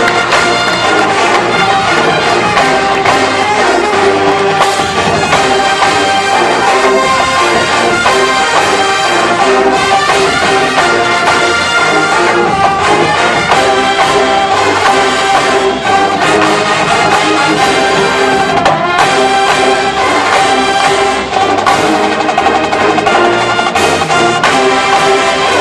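Loud brass ensemble music, with trumpets and trombones playing together continuously.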